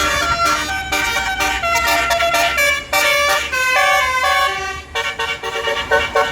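Bus 'basuri' telolet horn, a set of electric air horns playing a tune: loud pitched notes stepping from one to the next several times a second, over a low rumble.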